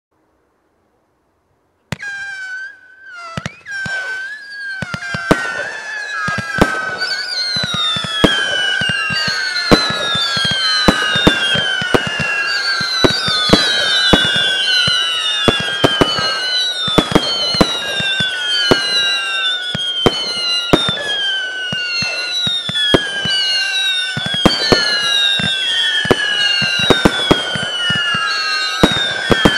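Marijn Vuurwerk "ADHD" firework firing a stream of whistling shots, starting about two seconds in. Many overlapping whistles each fall in pitch, with sharp bangs several times a second.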